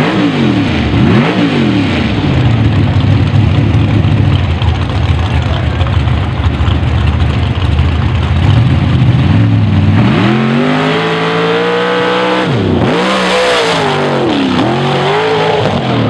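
Mud bog rail dragster's engine blipping the throttle at the line, then running steadily. About ten seconds in it goes to full throttle for the run, the pitch climbing, dropping sharply and climbing again a couple of times.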